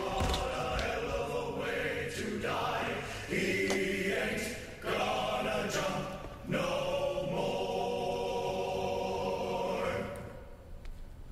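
A choir singing with sustained voices, as a soundtrack, with a few sharp cracks over it.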